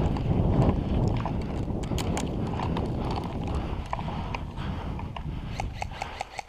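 Footsteps on wet grass, with kit rattling, over a steady rumble of wind and movement on a body-worn camera. The footfalls grow quieter and more evenly spaced near the end.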